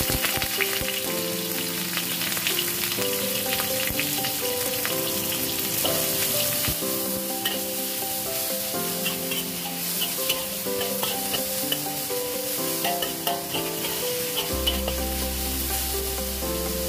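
Sliced red onion sizzling as it sautés in a pan, stirred with a utensil that gives scattered light clicks against the pan. The sizzle is steady throughout.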